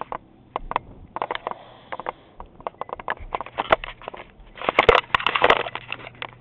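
Handling noise from a handheld camera being swung about: irregular clicks and knocks with rustling, and a louder, denser burst of rubbing and scraping about five seconds in.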